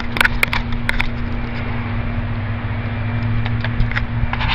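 Steady mechanical hum with a constant low drone and a single held tone over a noisy hiss, with a few sharp clicks in the first second.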